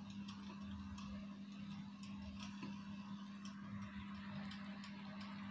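Faint room tone: a steady low hum with light, irregular ticks, about two a second.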